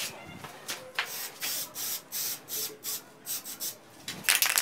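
Aerosol can of matte black spray paint hissing in short, quick squirts, about two or three a second, with a louder, rattly burst about four seconds in.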